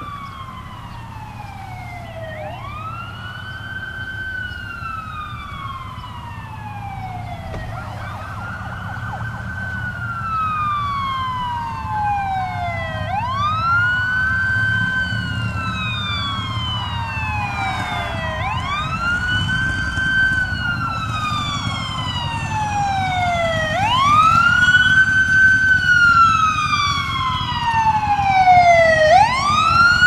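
Fire engine siren on a wail: about every five seconds it climbs quickly to a high pitch, holds briefly, and slides slowly back down, over the low rumble of the truck's engine. It grows steadily louder as the engine approaches on an emergency run.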